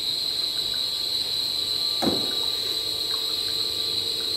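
NF 2000 cold-press screw oil press, an electric motor driving it through a reduction gearbox, running steadily: a continuous high-pitched whine over a low hum. A single short knock with a quick downward sweep comes about two seconds in.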